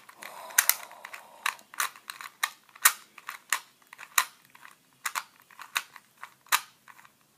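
Plastic puzzle cube being turned by hand, its layers clicking sharply at an irregular pace of about two clicks a second.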